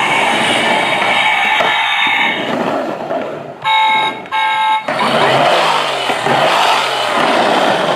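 Battery-operated toy vehicles playing electronic sound effects through small speakers. A steady electronic tone gives way to two short horn-like honks about four seconds in, followed by a noisy engine-like sound whose pitch falls.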